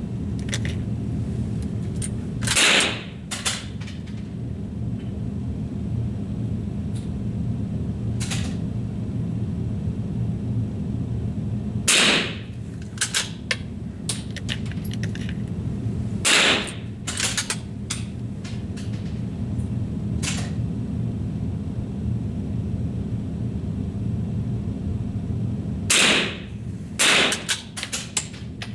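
Rifle shots fired at a paper target, five sharp cracks spread unevenly over the stretch, two of them close together near the end. Smaller clicks fall between the shots, and a steady low hum runs underneath.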